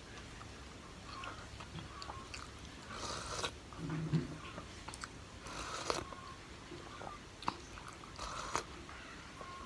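A person eating close to the microphone: chewing and wet mouth sounds, with three louder noisy bursts about two and a half seconds apart.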